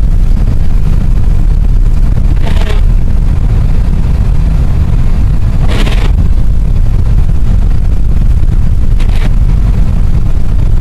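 Steady low rumble of a car driving on snow-covered roads, heard from inside the cabin, with three brief sharper sounds about two and a half, six and nine seconds in.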